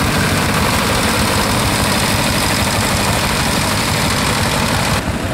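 Vintage tractor engine running as the tractor drives slowly past, its firing beats coming through as a rapid, even low pulsing.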